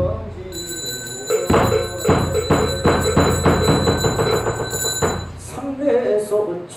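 Korean Buddhist ritual percussion between sections of chanting: a bright metal bell rings on while a run of strikes quickens and then stops. Chanting voices start up again near the end.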